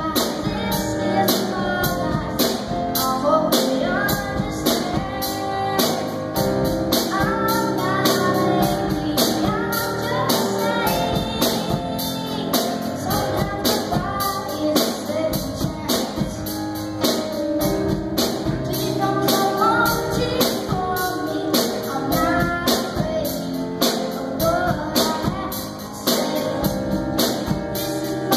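A solo singer singing into a microphone with a live band behind: a drum kit keeping a steady beat, with keyboard and guitars, all amplified through the hall's sound system.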